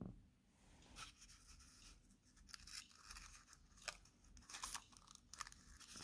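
Faint crackling and rustling of sellotape and a cardboard toilet-roll tube being handled as string is taped onto the tube, with short clicks scattered irregularly.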